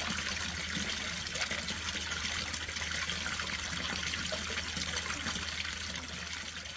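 Water from a garden fountain pouring steadily over a ledge and splashing into the basin below, with a faint low steady hum underneath; the flow starts to fade near the end.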